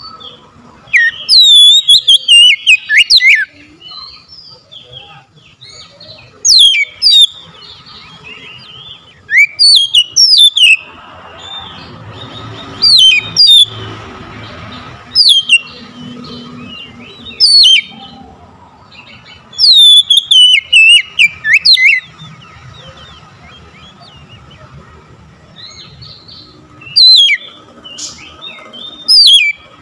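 Oriental magpie-robin singing in loud bursts of rich whistled phrases, with quick notes sliding down in pitch, about eight bursts with short pauses between.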